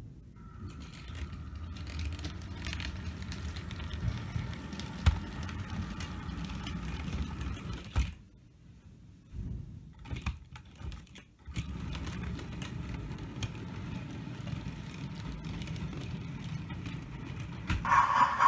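Model train running on the layout: a steady low rumble from the wheels of a model diesel locomotive and its wagons on the track, with scattered clicks as they pass over rail joints. It goes quieter for a few seconds as the train draws away, then picks up again. Near the end a louder, higher-pitched sound comes in.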